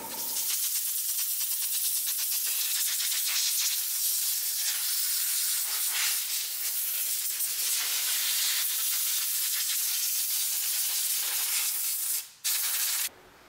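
Compressed air hissing steadily from a long blow-gun wand, with a fine fluttering rattle, as it blows dust out of an open vacuum-tube oscilloscope chassis. Near the end it cuts off, gives one short blast, and stops.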